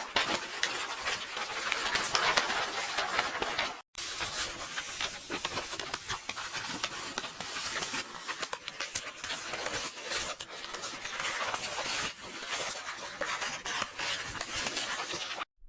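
Paper pages rustling and turning, a dense continuous crackle of many small crinkles, breaking off for an instant about four seconds in and again just before the end.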